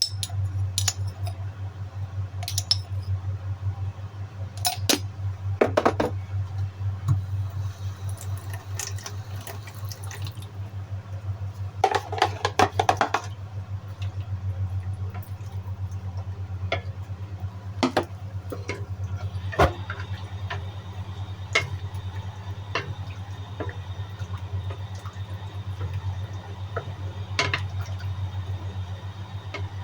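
Kitchen work sounds: a steady low hum with scattered clinks and knocks of pots and utensils, and a couple of short stretches of running or splashing water.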